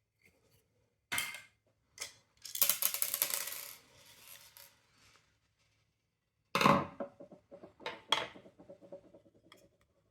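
Small hard plastic and metal parts of a window vacuum cleaner being handled and set down: a few separate knocks and clicks, a rattling clatter lasting over a second, then a louder knock about six and a half seconds in followed by a run of lighter clicks, the louder knocks leaving a short ring.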